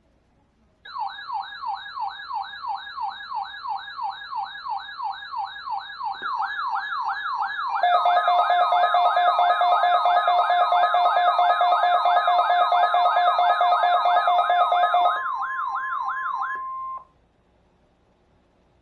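12-996 weather alert radio sounding its siren alarm, a fast warbling sweep a little over two times a second, set off by a NOAA Weather Radio weekly test. About halfway a steady tone, the broadcast's 1050 Hz warning alarm tone, joins and the sound gets louder, then it all cuts off suddenly near the end.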